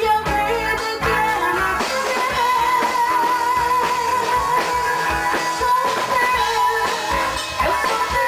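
Gospel rock song with electric guitars and drum kit, a long high note held from about two seconds in.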